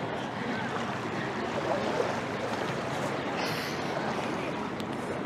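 Steady, soft rushing ambient noise with no distinct sound standing out.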